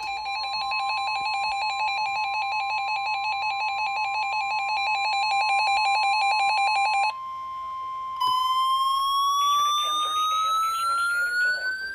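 Emergency Alert System attention signal: a loud, steady two-tone beep for about seven seconds. It is followed by a brief quieter tone and then a single tone that rises slowly in pitch.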